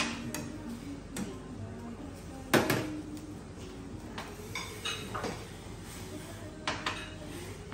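Kitchen clatter of metal cookware: a ladle clinking and scraping in a small saucepan and small bowls knocking on the steel counter, in scattered sharp clinks. The loudest clank comes about two and a half seconds in, with a cluster of lighter clinks near the middle and another pair near the end.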